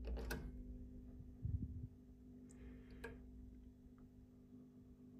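Steady low electrical hum from the bench power setup while its voltage control is turned by hand. A few faint clicks and a short low knock about a second and a half in.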